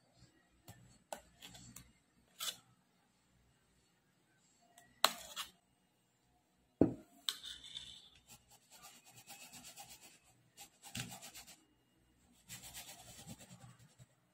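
Handling of metal tart pans filled with cheesecake filling: scattered light clicks and two sharp knocks, then scraping and rubbing as the pans are moved and pressed on a woven placemat. Faint.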